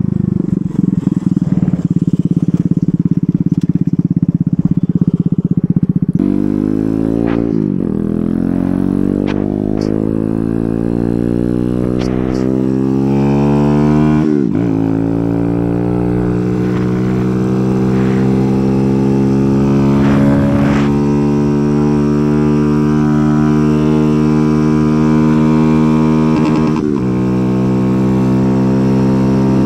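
Kawasaki Z125 Pro's 125 cc single-cylinder four-stroke engine through an aftermarket exhaust, heard while riding. It holds a low, steady note for about six seconds, then revs up, with the pitch dropping and climbing again at two upshifts, and settles into a steady cruise.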